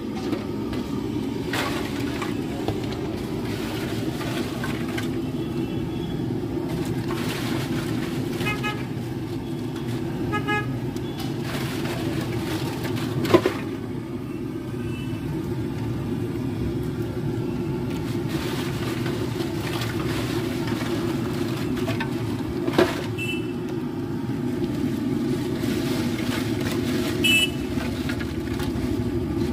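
Busy street traffic: a steady hum of vehicle engines with short horn beeps, a cluster of them about a third of the way in and another near the end. A couple of sharp clicks stand out.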